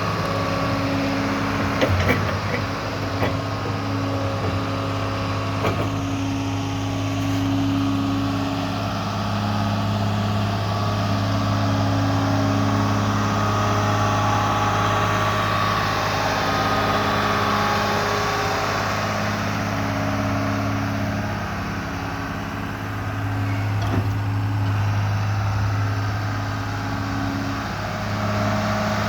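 John Deere 690B excavator's diesel engine running steadily, with a few short knocks.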